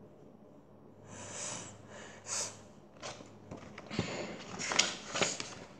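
A paperback picture book being handled close to the microphone: after a quiet second, several short paper rustles and a few light knocks as it is turned around.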